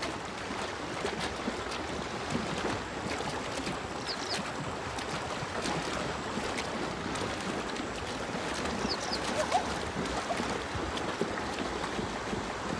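Zebras wading in shallow water: steady splashing and sloshing with many small splashes. A short high double chirp comes three times.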